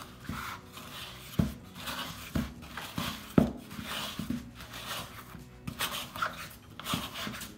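A silicone spatula scraping around the inside of a plastic mixing bowl, loosening sticky risen bread dough from the sides. Several irregular soft knocks come from the bowl as it is worked.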